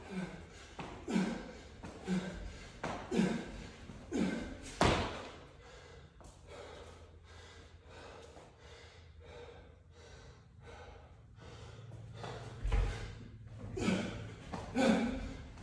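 Pull-up reps on a steel rig, a thud and a hard breath about once a second. In the middle comes a run of jump-rope double-unders, the rope slapping the floor two to three times a second. Near the end the rhythmic pull-up thuds and breaths start again.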